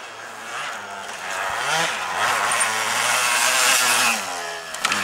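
Yamaha DT 125 two-stroke single-cylinder dirt bike engine revving as it is ridden over rough ground, rising and falling in pitch and growing louder as the bike comes close, then easing off about four seconds in. A sharp click sounds just before the end.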